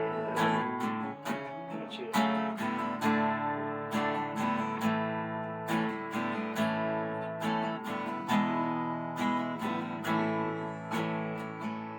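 Acoustic guitar strumming chords in a steady rhythm, an instrumental passage of a country-style song without singing.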